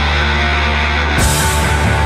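Loud heavy rock music. A held chord gives way, about a second in, to a crash and a fast, driving beat.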